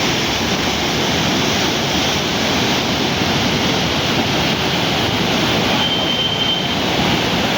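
Steady, loud rush of the swollen Yamuna river in flood, with a brief high steady tone about six seconds in.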